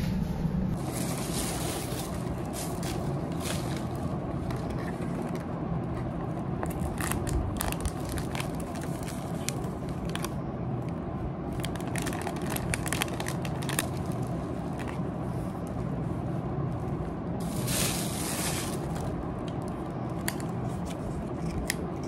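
Plastic parcel packaging rustling and crinkling as items are unpacked and handled, in many short irregular crackles over a steady low hum.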